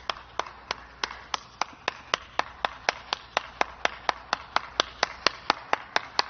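One person clapping hands in a steady rhythm, about four claps a second, getting a little faster.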